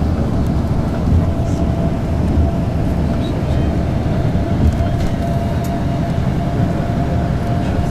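Steady low engine and road rumble inside a moving tour coach, with a faint steady whine running through it.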